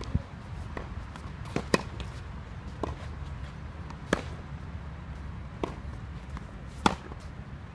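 Tennis rally on a clay court: a sharp pop of racket on ball about every two and a half seconds, with softer knocks of the ball bouncing in between.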